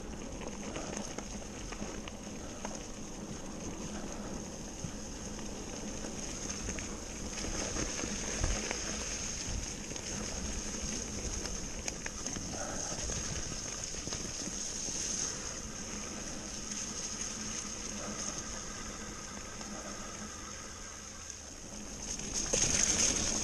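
Canyon mountain bike riding over a leaf-covered dirt trail: tyres rolling on leaves and soil, with a steady high hiss, occasional knocks from bumps, and louder rolling noise near the end.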